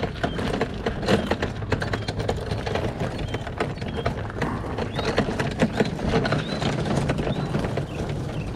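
Loaded pull-along garden cart rolling over gravel, its wheels crunching and the load rattling in a dense, irregular run of clicks, with footsteps on the gravel.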